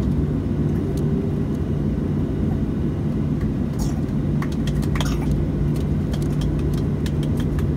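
Steady cabin drone of a Boeing 737-700's CFM56-7B engines at low power, heard from inside the cabin, with a constant low hum and scattered light clicks and rattles.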